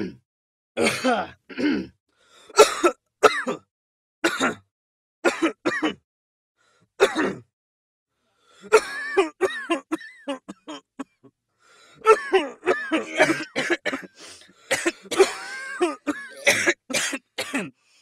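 Human coughing: a string of single, separate coughs for about the first seven seconds. After a short pause come longer fits of rapid, closely packed coughing.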